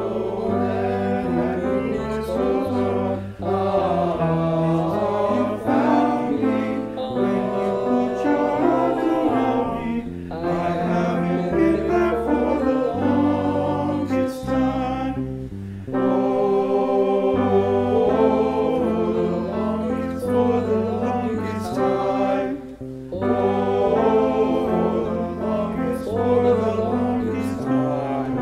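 Male choir singing a cappella in close harmony in doo-wop style, a bass voice singing short low notes beneath the upper parts, with brief breaks between phrases.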